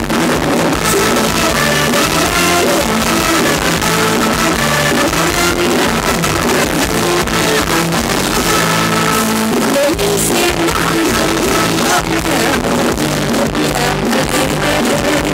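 Live Thai ramwong dance music from a stage band, played loud through a PA, with a woman singing into a microphone over electric guitar.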